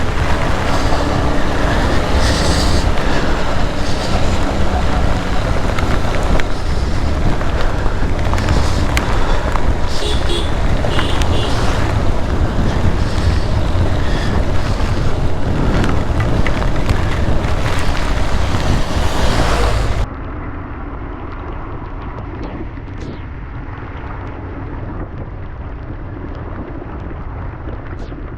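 Wind rushing over the microphone of a Yamaha R15 single-cylinder motorcycle being ridden in the rain, with the engine running underneath. About 20 seconds in the sound suddenly drops to a quieter, duller noise.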